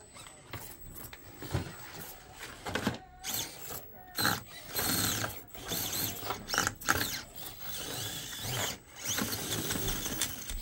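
Axial SCX24 micro RC crawler's small electric motor and gearbox whining in stop-start throttle bursts, the pitch rising and falling. The bursts are stronger and more frequent from about four seconds in.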